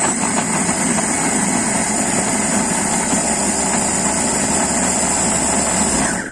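Electric mini food chopper running steadily, its blades grinding chillies, shallots, garlic and tomato with a little water into a sambal paste. The motor stops abruptly near the end.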